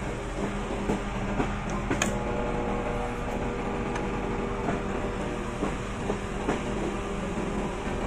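Whirlpool microwave oven running on a test heat with its outer cover off and a newly replaced magnetron: a steady hum with scattered light ticks.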